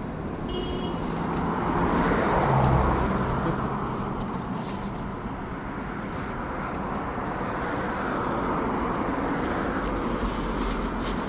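Road traffic noise, with a vehicle passing close about two to three seconds in.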